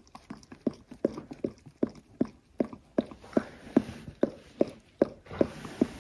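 Mother dog licking her newborn puppy right after whelping: short wet licks at about two and a half a second in a steady rhythm.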